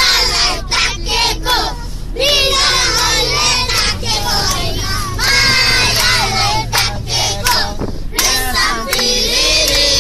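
A group of children singing a song together, several voices at once, over a steady low hum.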